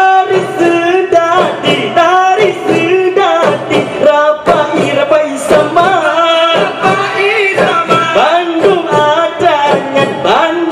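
Rapa'i geleng: a group of male voices singing a chant together, with sharp strikes on rapa'i frame drums.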